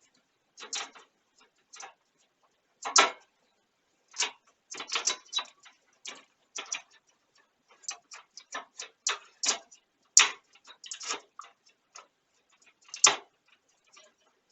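Irregular clicks, taps and clatters of hard plastic and metal computer parts being handled and fitted into a PC case, with sharper knocks about three, ten and thirteen seconds in.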